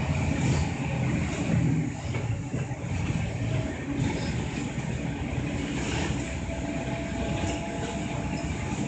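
City route bus's engine running with road and tyre noise, heard from inside the passenger cabin at the front while the bus drives along. The engine is a little louder for the first two seconds, then eases to a steady cruise.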